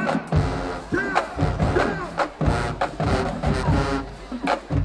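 High school marching band playing, brass over a drumline with heavy bass drum hits coming in about a third of a second in.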